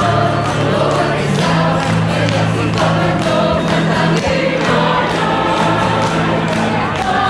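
Choir singing with instrumental accompaniment, over long held low notes that change pitch every second or two.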